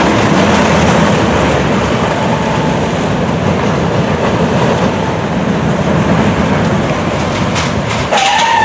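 Steel roller coaster train running along its track: a loud, continuous rumble and clatter of the wheels on the steel rails. Shortly after 8 s, as the cars pass close, a short wavering high-pitched sound rises over it.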